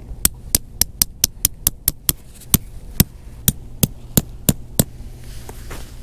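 Tent pegs being hammered into the ground: a run of sharp hammer strikes, about five a second at first, then slowing to about two a second, stopping near the end.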